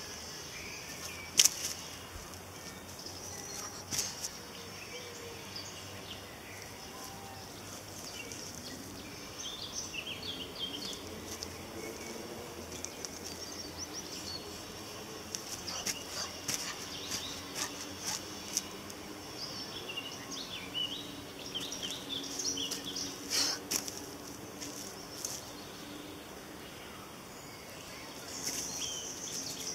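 Outdoor ambience with small birds chirping now and then, mostly in two spells in the middle, and a few sharp knocks, the loudest about a second and a half in.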